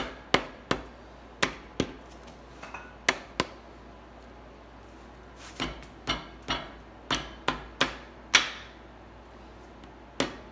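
Sharp metal knocks, two or three a second in short runs with a pause near the middle and the loudest near the end: the rear main bearing cap of a Ford 5.0 V8 block being worked loose, with the one-piece rear main seal still holding it.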